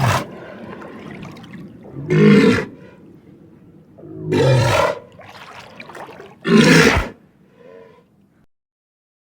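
Animal roar sound effects: four loud roars about two seconds apart, with a lower, quieter rumble between them.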